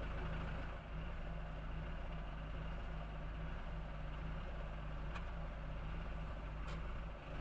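An engine idling steadily at low revs, most likely the machine that holds the engine on its chain while it is lowered into the car.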